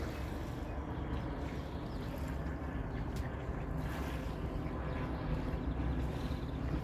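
A boat engine running with a steady low hum.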